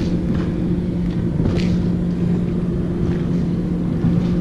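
A boat motor humming steadily at one pitch over a low rumble.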